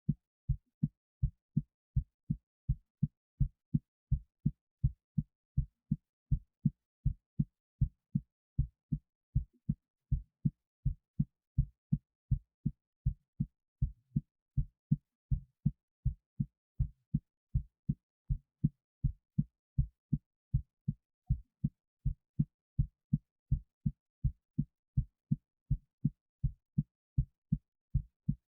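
A human heartbeat recorded close up: a steady run of low thuds, about two and a half a second. It is the normal resting rhythm, a little raised by excitement.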